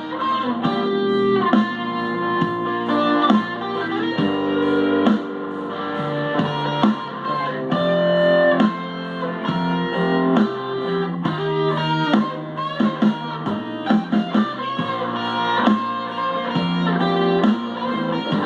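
Les Paul electric guitar played through a Boss ME-80 multi-effects pedal and a Fender Super Champ XD amp, sustained notes and chord changes over bass and drum backing from a DigiTech Trio+.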